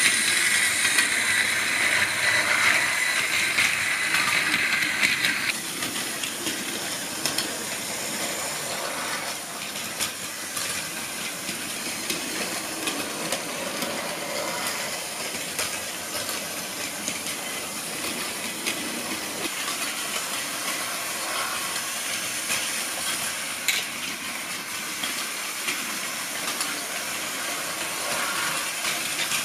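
Several battery-powered Plarail toy trains running on plastic track: a steady whir of small motors and a rattle of wheels on the track. The sound is louder for about the first five seconds.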